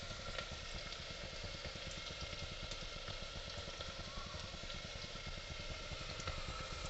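Chopped red onion frying in hot oil, a steady soft sizzle with fine crackling.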